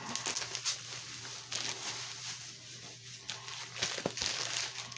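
Bubble wrap crinkling and rustling irregularly as it is handled and pulled off a package by hand.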